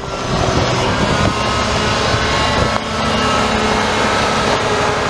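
Automated side-loader garbage truck's diesel engine running as the truck pulls up close, with a steady whine over it.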